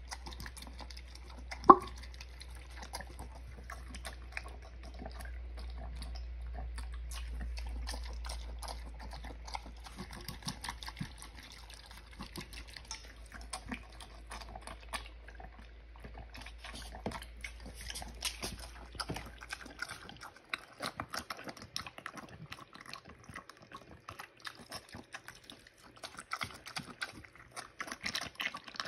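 A mini pig eating soaked pellet feed and slurping water from its bowls: continual wet slurping, smacking and chewing with many small clicks. One sharp knock about two seconds in.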